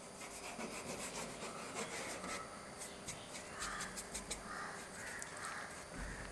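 Paintbrush loaded with coloured drawing ink dabbing and rubbing across paper in short strokes, faint and scratchy.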